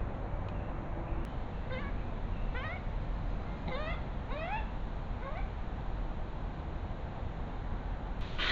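Japanese macaques giving a string of five or six short coo calls, each rising in pitch, from about two seconds in until past the middle.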